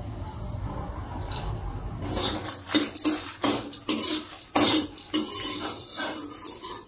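Perforated metal spoon scraping and clinking against a metal kadai as dried red chillies are stirred and dry-roasted without oil, in a run of irregular strokes starting about two seconds in. A low steady rumble fills the first two seconds.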